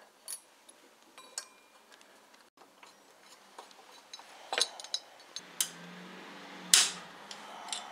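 Scattered metallic clinks and clicks of hand tools and parts being handled as the power-steering pump pulley comes off, the sharpest clink near the end.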